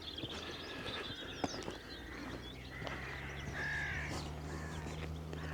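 Crows cawing at a distance, with scattered calls of other birds. A low steady hum comes in about two seconds in and carries on beneath the calls.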